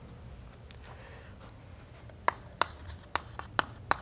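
Chalk writing on a blackboard: after about two quiet seconds, a run of sharp chalk taps and strokes as letters are written.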